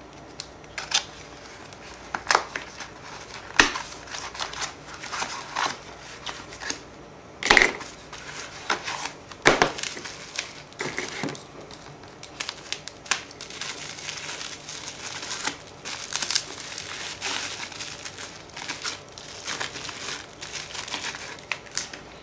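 Packaging crinkling, crumpling and tearing in irregular crackles as a boxed RC model's battery is unwrapped by hand.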